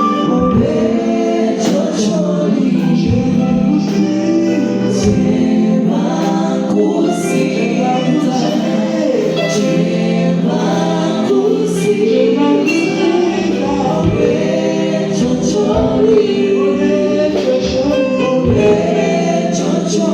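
Gospel choir singing a worship song in several voices over a steady held low note.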